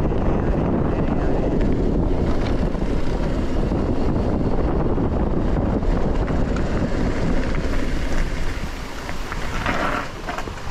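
Heavy wind buffeting on the microphone of a moving mountain bike, mixed with the tyres rolling over a rough track; the noise eases a little near the end.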